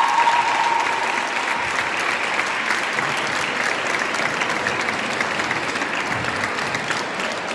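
Audience applauding steadily, with the last held note of the routine's music fading out about a second and a half in.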